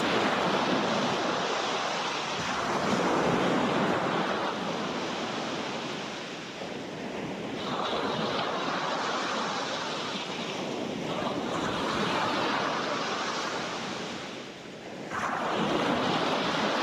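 Sea waves breaking and washing in, swelling and fading every few seconds.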